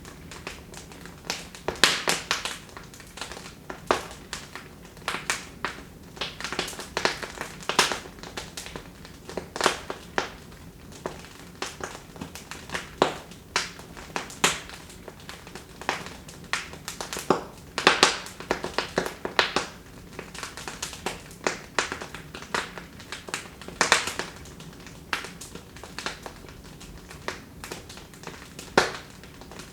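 Wood fire burning in a fireplace: irregular sharp crackles and pops, several a second in clusters, over a soft steady hiss.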